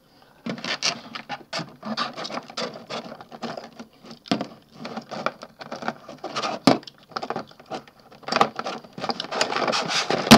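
Clear plastic clamshell packaging crackling and clicking irregularly as plastic toy parts are pried out of their moulded tray by hand. There are a few sharper snaps, the loudest at the very end.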